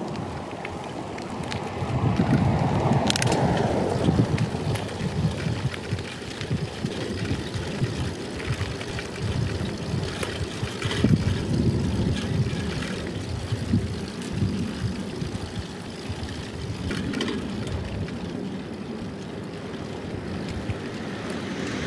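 Wind buffeting a handlebar-mounted phone's microphone over the tyre and road noise of a cross bike being ridden, with a few sharp clicks along the way.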